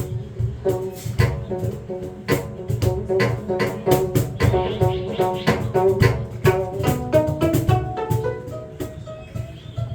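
Live band music with regular drum hits under a bass line and pitched melody notes.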